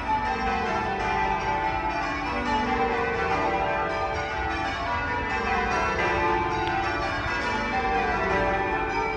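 A twelve-bell ring of church bells change ringing: the bells are struck one after another in quick succession with overlapping ringing tones. The pitches step down in repeated runs from the higher bells to the tenor.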